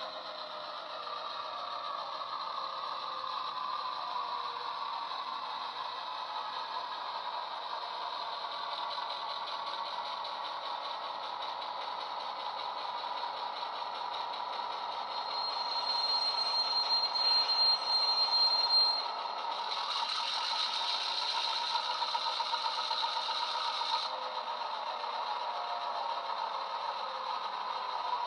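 Model Irish Rail 121 class diesel's DCC sound decoder playing its EMD engine sound through the loco's small speaker, together with the model's wheels rattling over the track. The engine note falls over the first few seconds. A brief high squeal comes about halfway through, and a hiss lasting a few seconds follows about two-thirds through.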